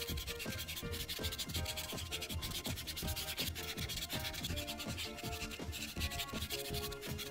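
Prismacolor marker nib rubbing rapidly back and forth on paper as a background is coloured in: a quick, continuous scratchy scribbling.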